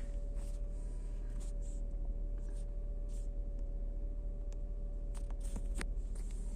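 Steady low hum with a faint steady tone, broken by a few light clicks and rustles scattered through, as of a phone being handled and set close to the front wheel of a car.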